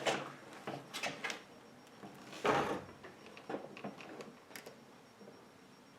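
A few light knocks and one short scraping rustle about two and a half seconds in, from a plastic upright carpet washer being handled. Its brush motor is not running.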